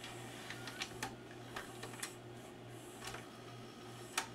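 Magnavox ZV427MG9 DVD-VCR's VHS mechanism loading a cassette: a faint steady hum with light scattered clicks of gears and levers, and one sharper click near the end. The mechanism is driven by the capstan motor, working again after a shorted capacitor and a damaged transistor in its supply were replaced.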